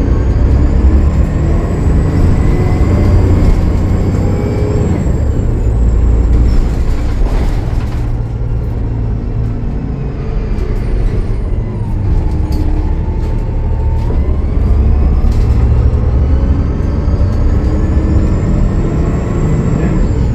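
Gillig Low Floor bus's Cummins ISL9 diesel engine running under load, with a high-pitched turbocharger whistle over a deep engine rumble, which the title puts down to a turbo leak. The whistle holds high for the first few seconds and falls away, the bus goes quieter for a few seconds in the middle, then the whistle builds again and drops off near the end.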